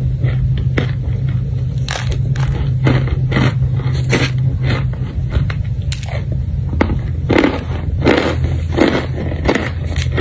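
Crunching bites into chunks of compressed cornstarch held close to the microphone, about a dozen sharp crunches at irregular spacing over a steady low hum.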